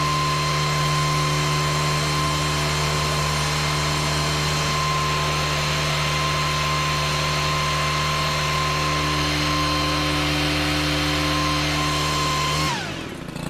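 Stihl KM 131R KombiMotor's 4-MIX engine driving the leaf blower attachment, running steadily at high revs with a steady high whine. Near the end the throttle is let off and the revs fall quickly toward idle.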